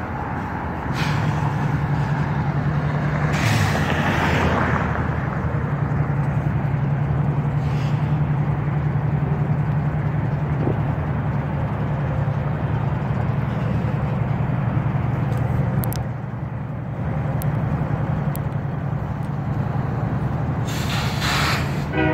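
Diesel locomotive idling in a rail yard: a steady low drone, with a short burst of hiss about three and a half seconds in.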